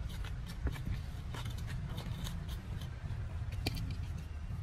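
Metal hand trowel scraping and scooping through dry soil in a plastic plant pot: a run of short, irregular scrapes and ticks over a low steady rumble.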